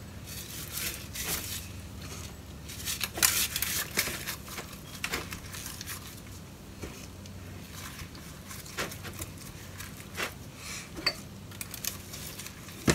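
Gloved hands rubbing seasoning into a raw pig's head in a disposable aluminium foil pan: irregular rustling and crinkling of the foil, with scattered sharp clicks, over a faint steady low hum.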